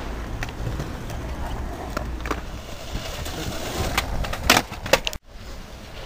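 Skateboard wheels rolling on concrete, with sharp wooden clacks of the board as it is popped, lands and slaps the ground. The loudest clacks come about four and a half and five seconds in, during a kickflip attempt at the top of a set of stairs.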